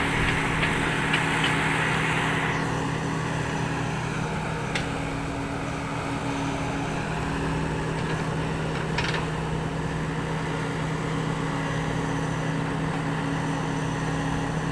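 Heavy engine running at a steady idle, with a hiss that fades out a couple of seconds in.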